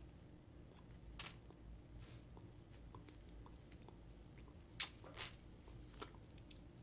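Faint mouth sounds of sucking on a candy on a stick, with a few short sharp clicks and smacks, one about a second in and a couple close together around five seconds in.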